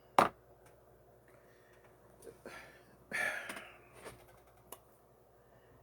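A sharp click just after the start, then a man's audible exhaled breath a few seconds in and another small click near the end, in a small room.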